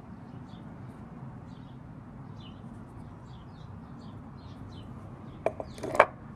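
Small birds chirping, short high chirps repeated every half second or so over a low steady background rumble. Near the end come two sharp knocks about half a second apart, the second the loudest, as hands handle things on the table.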